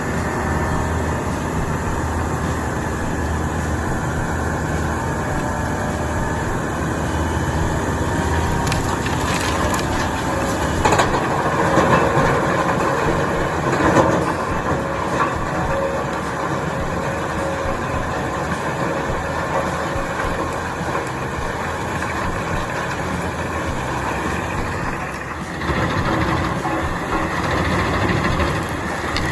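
Heavy-duty shredding machine running under load, grinding and crushing material, with a few louder crunches around the middle.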